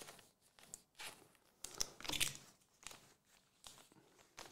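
Football trading cards being shuffled and slid against one another in the hand: a few faint, scattered rustles and clicks, the loudest about two seconds in.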